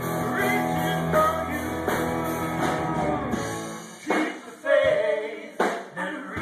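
Live rock band with electric guitars, bass, drums and keyboard playing behind a male lead singer. About three and a half seconds in, the bass and fuller band drop out, and the singing carries on almost alone with a sharp hit about every second and a half.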